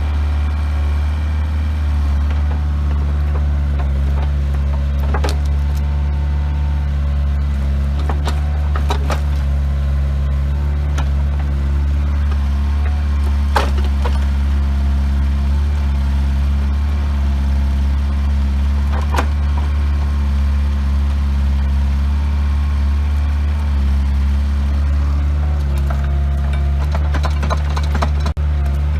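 Bobcat 430ZHS mini excavator's Kubota diesel engine running steadily, with occasional sharp clanks and knocks, several close together near the end.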